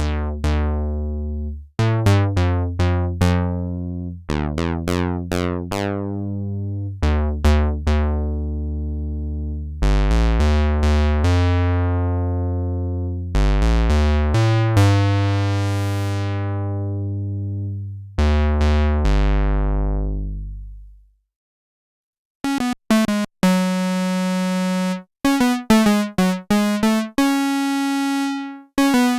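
Behringer CRAVE single-oscillator analog synthesizer, dry with no effects, playing a line of low, buzzy bass notes whose brightness fades as the ladder filter closes on each note. After a short pause just past two-thirds of the way in, it switches to a quicker pattern of short, higher notes.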